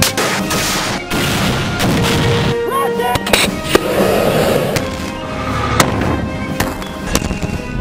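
Background music with a string of sharp military blasts from explosions and weapon firing, several of them cutting in at irregular moments, the loudest about three to four seconds in and another near six seconds.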